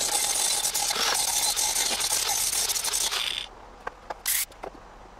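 Hand-held grinder grinding on a steel roll-cage tube: a steady hiss with a motor whine that stops about three and a half seconds in. A few light clicks and one brief burst of grinding follow.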